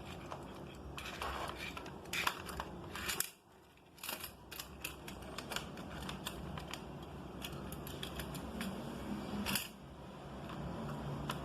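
Toy cars and plastic playset pieces being handled: scattered small clicks and rattles, with a short near-silent pause about three seconds in.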